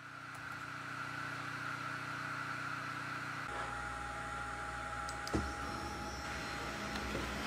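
Diode laser engraver running: a steady hum from its cooling fan and motors, which changes in tone abruptly about halfway through, then carries a thin steady whine and a single click about two-thirds in.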